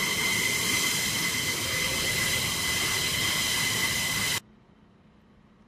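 F-15E Strike Eagle's twin jet engines running at taxi power: a steady rush with a high-pitched turbine whine. It cuts off suddenly about four seconds in, leaving only a faint hiss.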